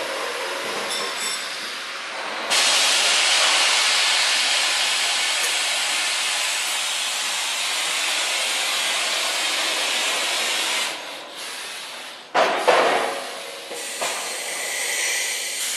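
Vacuum tube lifter's air flow hissing loudly as it holds and moves a gas cylinder, starting suddenly a couple of seconds in and running steadily for about eight seconds before falling away. Near the end there is a sudden louder rush and uneven hissing as the cylinder is set down in the rack.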